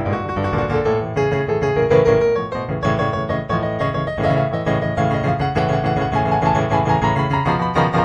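Improvised solo piano music, single melody notes moving over held chords.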